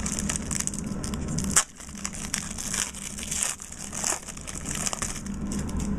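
Trading card pack wrapper being torn open and crinkled by hand: a run of crackling with many small clicks and one sharp snap about a second and a half in.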